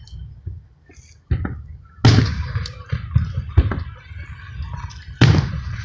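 Aerial fireworks bursting: two loud booms about two and five seconds in, each with a low rumbling echo, and smaller bangs and crackles between them.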